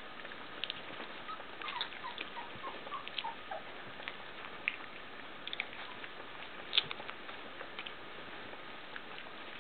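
Young puppies nursing from their mother: small scattered suckling clicks and smacks, with a run of tiny squeaks stepping down in pitch a couple of seconds in and one sharper click near the end.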